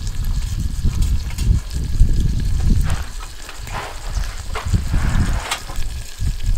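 Wind rumbling in gusts on the microphone, with chicken thighs sizzling in olive oil in a cast-iron Dutch oven over a wood-fired rocket stove. The sizzle comes through more clearly in the middle, with a few small crackles.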